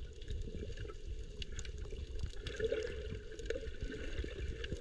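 Muffled churning and bubbling of water heard underwater, from a snorkeler's fin kicks at the surface. It is a bent-knee, bicycling kick that throws off a lot of bubbles and moves him very little.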